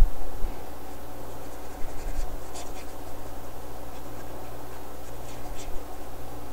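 Paintbrush strokes on a canvas: a few faint, short scratchy strokes, about two seconds in and again about five seconds in, over a steady low hum.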